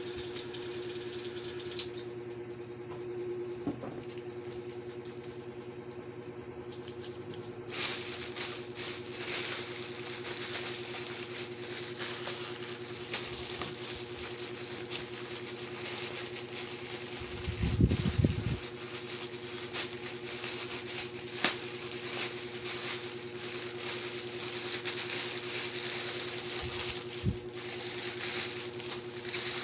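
Plastic packaging bags crinkling and rustling as they are handled and torn open, starting about eight seconds in, with a dull thump about eighteen seconds in. A steady low hum runs underneath.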